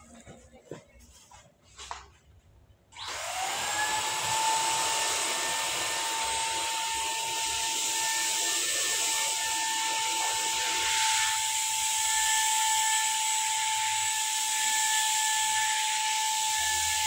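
Electric paint spray gun switched on about three seconds in: its motor quickly winds up to a steady high whine over a hiss, running without a break.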